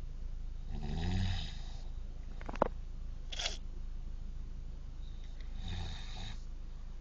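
A sleeping man snoring: two long, low snores about five seconds apart. Between them there is a single sharp click, followed by a brief hissing breath.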